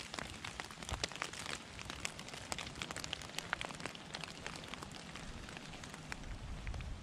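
Water drops pattering on leaves and leaf litter: a dense, irregular patter of small ticks over a soft hiss.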